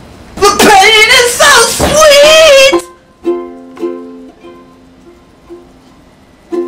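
A loud wordless voice held for about two seconds, wavering up and down in pitch, then a ukulele picked one note at a time, each note ringing and fading.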